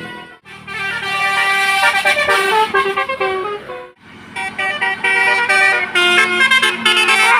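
Basuri bus horn playing a melody of held notes that step from pitch to pitch. The tune breaks off briefly about half a second in and again about four seconds in.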